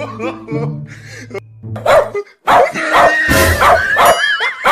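Recorded dog barking played loudly from a portable speaker, a rapid series of barks starting about halfway through after a brief drop-out, with a high wavering cry near the end. Background music plays underneath the first half.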